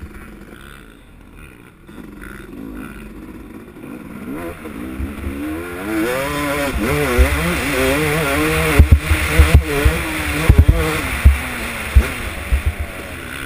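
Dirt bike engine heard from the rider's helmet camera, running low and quiet at first. From about four seconds in it revs up and down repeatedly as the bike picks up speed on the track. Strong low thumps come through the middle and later part.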